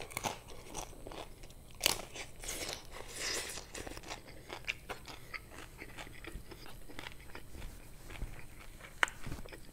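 Biting into and chewing a crunchy hard-shell taco at close range: the shell cracks with a loud crunch about two seconds in, followed by a run of smaller crunches and then softer chewing.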